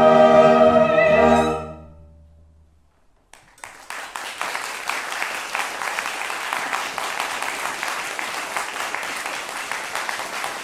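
Chamber orchestra of strings and French horns holding the final chord of a carol medley, cut off about a second and a half in. After a short silence, the audience bursts into steady applause that continues.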